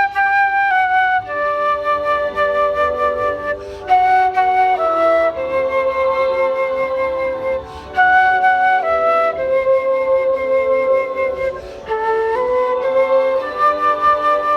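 Instrumental music: a slow melody of long held notes on a flute-like wind instrument, with a second part sounding beneath it.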